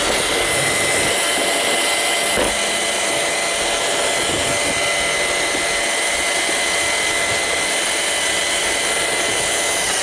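Roomba robot vacuum running, heard from a camera riding on it: a steady whir of its vacuum motor and brushes with a thin high whine, and a single knock about two and a half seconds in.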